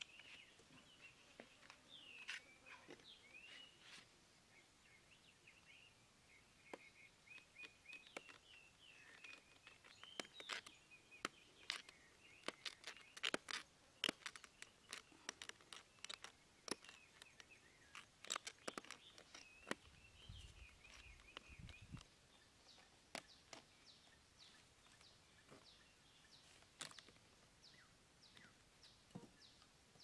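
Sharp clicks and snaps of a knife blade cutting into the ribs of a plastic basket, thickest through the middle, over birds chirping; later, short chirps repeat evenly several times a second.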